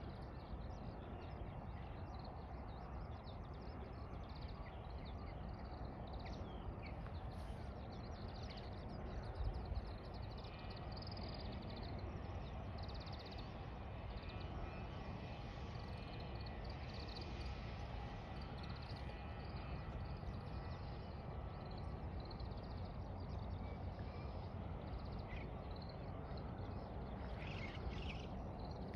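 Small birds chirping and twittering over a steady low background rumble, with a brief low thud about nine and a half seconds in.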